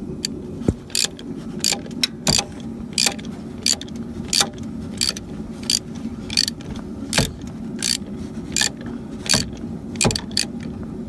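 Ratchet wrench clicking in a steady rhythm, about one click every 0.7 seconds, while tightening a newly installed oil pressure sensor on a 5.7L HEMI engine block. A steady low hum runs underneath.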